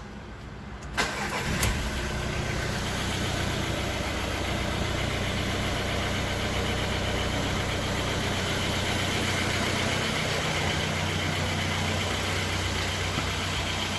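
Volkswagen Vento's engine starting promptly about a second in, with a couple of sharp clicks as it catches, then idling steadily. The quick start is the sign that its hard-starting fault has been repaired.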